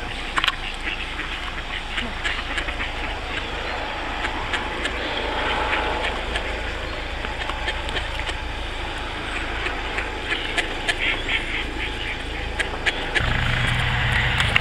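Mallard ducks quacking in short runs over a steady low rumble, the quacking busiest about ten to eleven seconds in; a deeper hum joins near the end.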